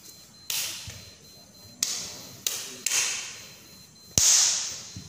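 Sharp slaps from a silat practitioner's hand strikes during a form, five in all, each echoing in a hard-floored hall; the loudest comes near the end with a thud under it.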